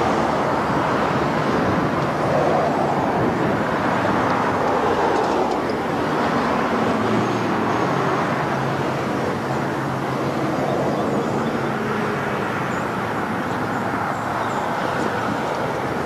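Steady engine rumble with a low hum that wavers slightly in pitch.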